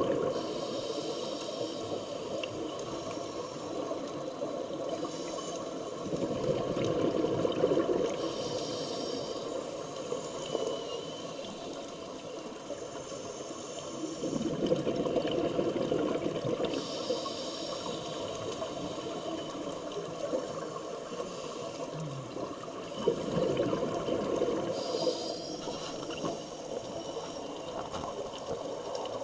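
Scuba regulator breathing underwater: exhaled bubbles gurgle in swells every several seconds, with short hisses of the regulator between them as air is drawn in.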